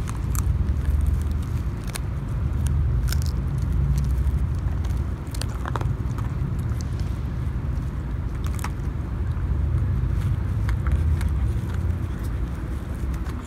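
Two dogs, a border collie and a papillon, gnawing dried veal shin bones: irregular sharp cracks of teeth on bone, over a steady low rumble.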